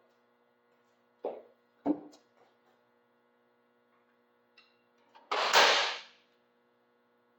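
Small second snare drum struck three times, each harder than the last, with its snare wires switched off, so it sounds like a small tom rather than a snare. The third hit, about five seconds in, is the loudest and rings longest. A steady electrical hum runs underneath.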